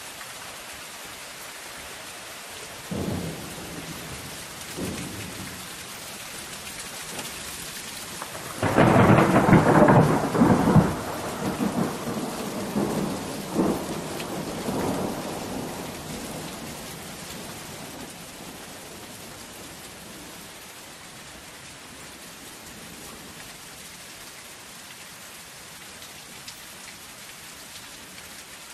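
Steady rain on a zinc roof with thunder: two short low rumbles about three and five seconds in, then a loud thunderclap about nine seconds in that rolls on and fades away over the next several seconds.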